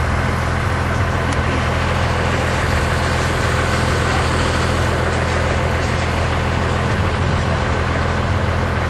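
Motor vehicle engine running at a steady pitch, a constant low hum with a rushing noise over it.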